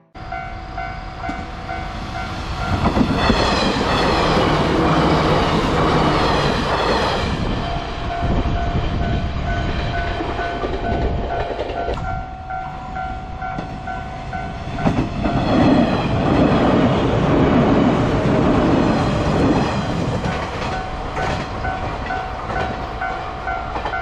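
JR 115-series electric train running through a level crossing, its rumble and wheel clatter on the rails swelling loud twice. Behind it the crossing's warning bell rings steadily in a quick repeating ding.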